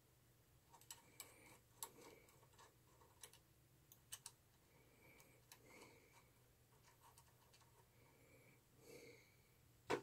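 Faint, scattered clicks and taps of a small circuit board and its metal SMA coax connectors being handled, about eight in all at irregular intervals, the loudest near the end.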